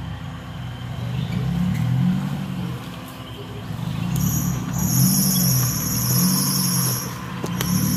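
Off-road 4x4's engine running with revs rising and falling every second or two. About four seconds in, a loud steady high-pitched buzz joins it, briefly breaking off near the end.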